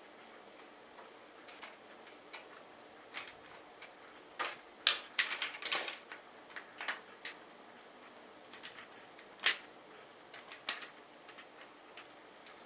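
Irregular sharp clicks and clacks of small hard parts being handled and fitted inside a PC case while a Corsair H70 CPU cooler is mounted. A quick run of clacks comes about five seconds in, with another loud single clack near ten seconds.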